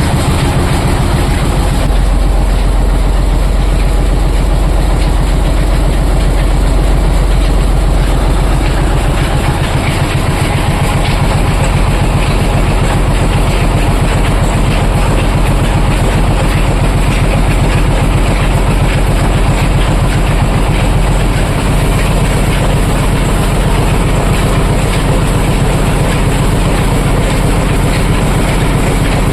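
Oil expeller machine running: a loud, steady mechanical clatter with a fast, even rattle over a low hum.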